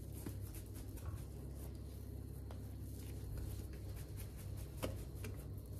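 Oiled hands stretching and folding sticky wholegrain bread dough in a glass bowl: soft handling noises and scattered small clicks, one sharper click near the end, over a low steady hum.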